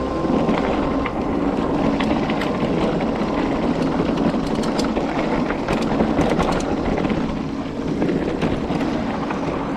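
Hardtail mountain bike descending a rough trail at speed: tyre rumble and chain and frame rattle over braking bumps, with wind on the microphone and a steady low hum running throughout.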